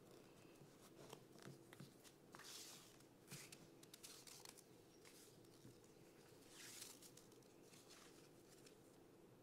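Faint swishing and small clicks of satin pointe shoe ribbons being pulled and wrapped around the ankle, with two longer swishes about two and a half and seven seconds in.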